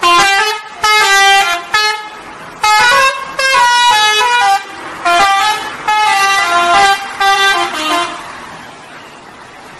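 Bus 'telolet' horn, a modified multi-tone musical air horn, playing a jingle of stepped notes in several loud bursts that end about eight seconds in.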